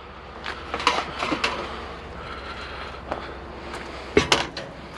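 Scattered knocks and clatters of junk being moved and handled while a pile of discarded items is sorted, a few in the first second and a half and a sharper cluster near the end, over a steady low hum.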